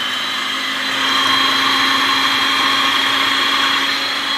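Electric blender motor running steadily at full speed, mixing dry sugar and flour, with a steady high whine over its whir.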